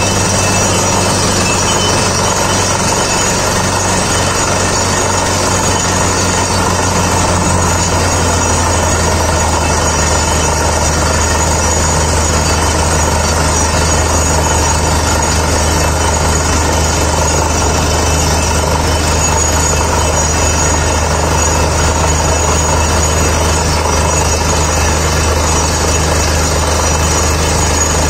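Truck-mounted borewell drilling rig running flat out: the steady low drone of its engine-driven air compressor, mixed with the rushing blast of compressed air driving the air hammer and blowing rock dust up out of the bore. The low drone shifts slightly about eight seconds in.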